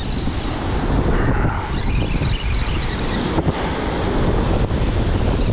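Wind buffeting the camera microphone over the steady wash of breaking surf.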